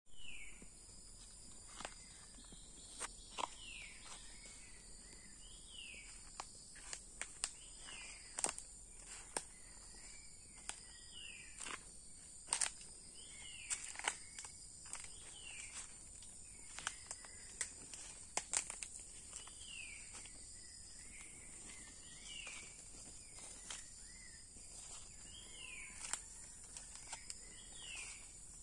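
A steady high-pitched chorus of insects, with a short, falling call repeated every second or two and scattered crunches of footsteps on dry leaf litter.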